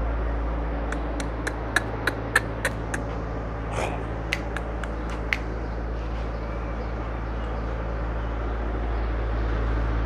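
Steady low hum with a quick run of sharp clicks or taps, about three a second, starting about a second in and stopping about halfway through.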